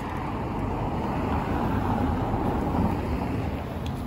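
A car passing on the road. The noise swells to a peak about two to three seconds in, then fades.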